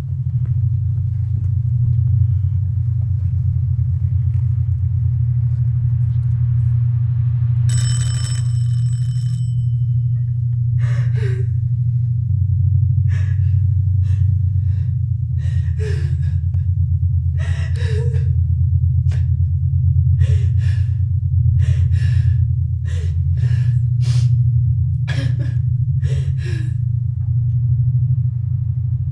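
A steady, deep rumbling drone under a woman's gasping, sobbing breaths: a dozen or so short, sharp intakes through the second half. A brief high ringing shimmer comes about eight seconds in.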